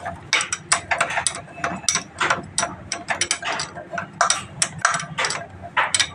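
Hand ratchet wrench clicking in quick, uneven strokes as nuts on a Bajaj Discover motorcycle engine are tightened by hand.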